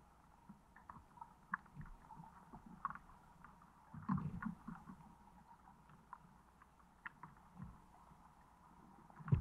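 Underwater sound picked up by a camera sitting on the lake bottom: faint scattered ticks and muffled low knocks, with a burst of low thumps about four seconds in and one sharp thump near the end.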